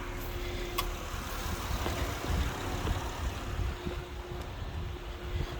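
2007 Acura MDX's V6 engine idling steadily, with a light click about a second in.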